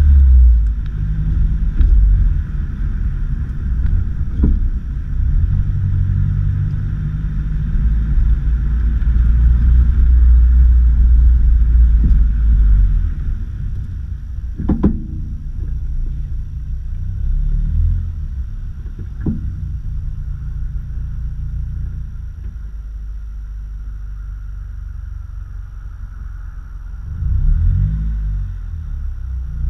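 Vehicle on the move with a steady low rumble, broken by a few sharp knocks from the suspension, about four and a half, fifteen and nineteen seconds in.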